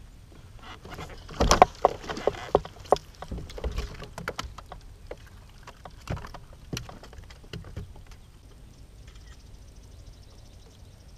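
Splashing and a quick run of sharp knocks and clatter against a plastic fishing kayak as a largemouth bass is landed, loudest about a second and a half in. It is followed by scattered lighter clicks of handling.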